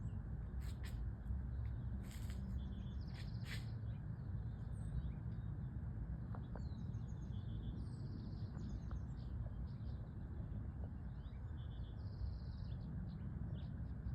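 Small birds chirping and giving short, high trilled calls every few seconds, over a steady low rumble of outdoor background noise.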